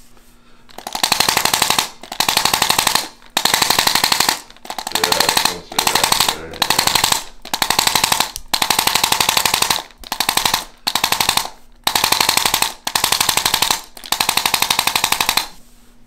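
Corded electric chiropractic adjusting instrument firing rapid repeated taps into the lower back, in about a dozen one-second bursts with short pauses between them, as it is worked along the lower lumbar spine to get motion into compressed joints.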